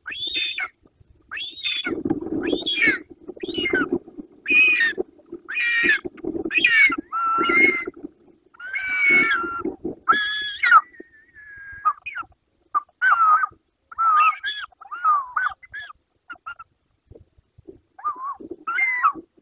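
Short-toed eagles calling at the nest as the male delivers a snake to the incubating female: a run of loud, high whistled calls, many sliding down in pitch, about one a second. The calls grow shorter and more broken in the second half. A low rumbling noise sits underneath the first half.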